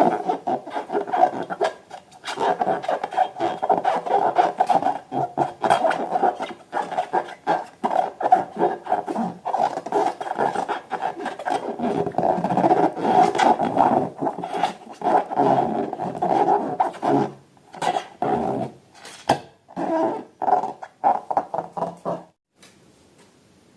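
Rubber balloons being rubbed and squeezed by hands, giving a rough, growling squeak broken by many small clicks and creaks; it stops near the end.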